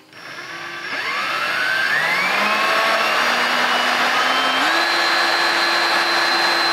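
Power drill running a 17/64 in bit through the Jeep's rear-corner body sheet metal, its motor whine rising in pitch over the first two seconds, stepping up again about four and a half seconds in, then holding steady.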